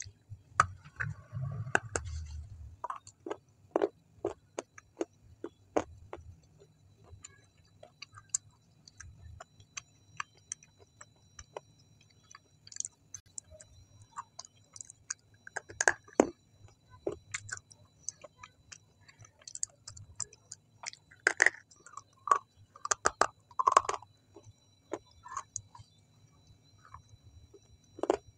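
Close-miked mouth sounds of a person biting and chewing soft food: irregular wet clicks and smacks, some louder and some faint.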